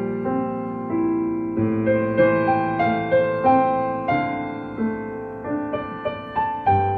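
Slow, gentle piano music: single notes and chords struck every half second or so and left to ring and fade.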